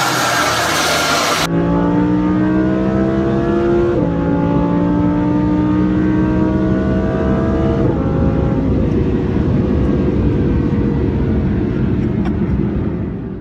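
Audi R8 V10 Plus's 5.2-litre V10 through a valved Fi Exhaust system, briefly revving behind the car, then heard from inside the cabin under hard acceleration. Its note climbs, dips at two upshifts about four and eight seconds in, then slowly falls and fades near the end.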